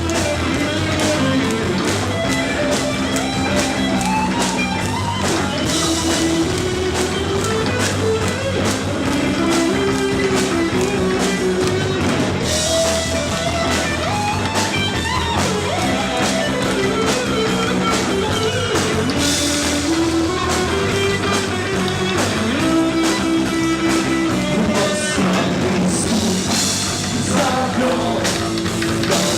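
Rock band playing an instrumental passage: a melodic line over electric guitar and a steady drum kit beat.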